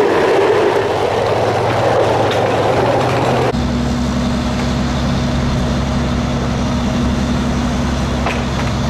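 Fire engine running steadily. About a third of the way in, a broad rushing noise cuts off abruptly into a steadier, deeper engine hum.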